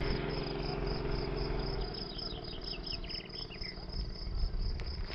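Crickets chirping steadily in a high, pulsing trill, with a short run of bird chirps about halfway through. A low hum sounds underneath for the first two seconds and then stops.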